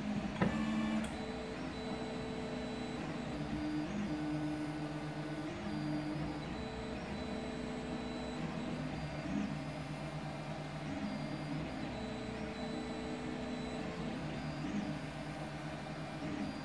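CoreXY 3D printer's stepper motors whining in steady tones that jump to new pitches every second or so as the print head moves while printing, over an even fan hiss. A brief click about half a second in.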